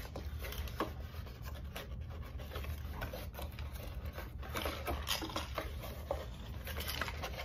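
Cardboard mailing box being handled and pulled open by hand: cardboard rubbing and scraping, with scattered light taps and crinkles.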